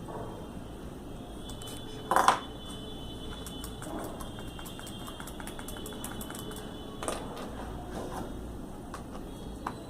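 Small hard plastic clicks and taps of a basic mobile phone's back cover and battery being handled, with a louder rattling click about two seconds in and another about seven seconds in.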